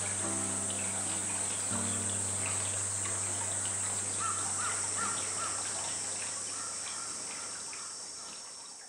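Cicadas droning steadily at a high pitch, with soft held low notes of background music underneath and a few short bird chirps around the middle. Everything fades out near the end.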